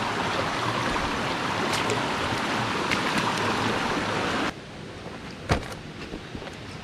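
Shallow rocky forest stream rushing over stones close by, an even hiss of water. About four and a half seconds in it cuts off suddenly to a quieter steady hiss, with one sharp knock about a second later.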